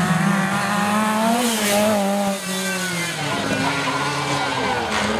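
Lancia 037 rally car's supercharged four-cylinder engine revving hard as it comes by, the pitch climbing and then dropping away. After about two and a half seconds another car's engine rises and falls as it is revved and eased off.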